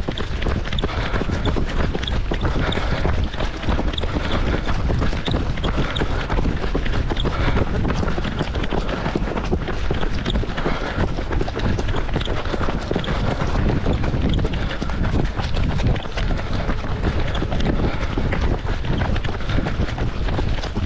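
Wind buffeting the microphone of a camera carried by a runner in a race, with the patter of running footsteps on a wet road.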